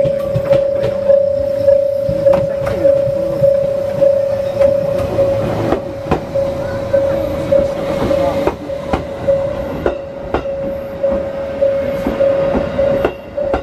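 Railway level-crossing warning bell ringing in steady pulses, just under two a second, as a local electric train pulls into the station past it. The train's wheels rumble and clatter over the rail joints and squeal faintly as it slows.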